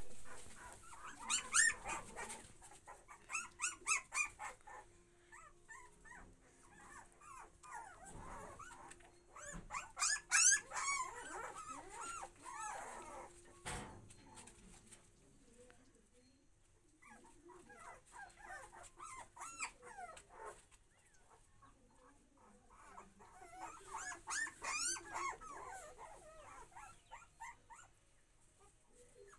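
A litter of young puppies crying in high-pitched, wavering whines and squeals, several at once. The cries come in clusters a few seconds apart, with quieter gaps between.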